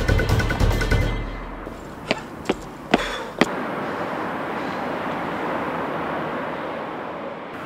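Soundtrack music fades out about a second in. Four sharp knocks come a little under half a second apart, and then a steady outdoor background hiss runs on.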